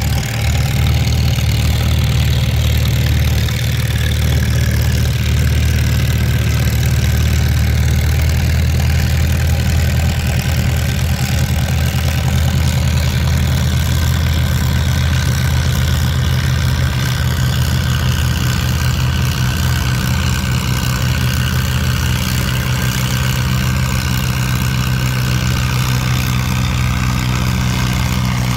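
Antique farm tractor engine running steadily, with a slight shift in pitch about eight seconds in, and wind on the microphone.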